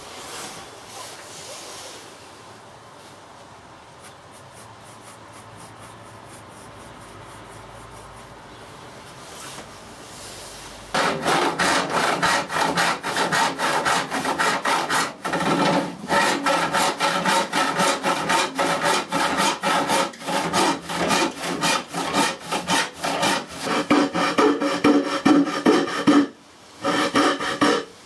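Hand saw cutting through a pine board, after a quiet stretch of about ten seconds: fast, regular back-and-forth strokes that run on with a short break shortly before the end.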